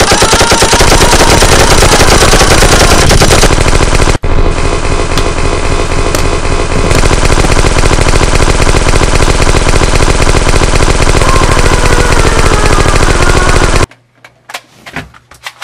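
Sustained automatic machine-gun fire, dubbed in as a sound effect: an unbroken stream of rapid shots that runs about fourteen seconds with a brief break about four seconds in, then cuts off abruptly. A few separate knocks follow near the end.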